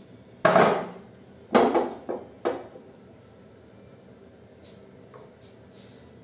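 Four heavy knocks or clanks of hard objects in about two seconds, each dying away quickly.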